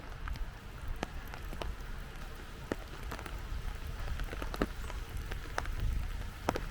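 Rain falling, with irregular sharp taps of drops landing close to the microphone over a steady hiss and low rumble.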